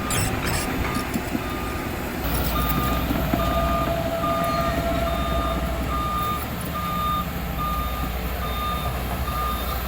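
Construction machine's reversing alarm beeping steadily, a little more than one beep a second, over the rumble of its engine, which grows louder about two seconds in.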